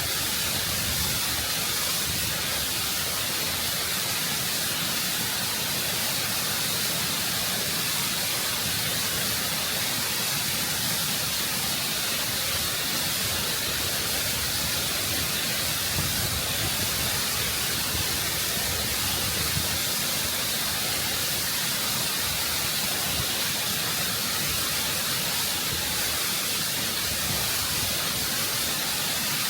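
Waterfall heard close up, water rushing and cascading over rock in a steady, full, unbroken roar of white-noise-like hiss and spray.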